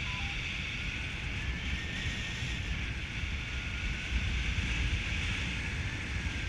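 Wind rushing and buffeting over the camera microphone from the airflow of a paragliding flight, a steady low rumble with a hiss above it.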